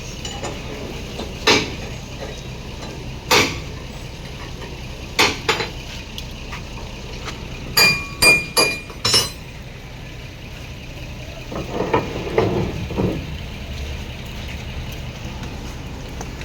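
A series of sharp metallic clinks and knocks, a few ringing briefly about eight seconds in, over a steady low engine hum.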